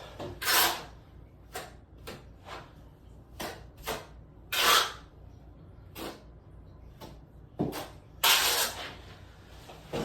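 Scattered scrapes, knocks and taps of a trowel working LFT speed set thin-set mortar, with a few longer scraping strokes.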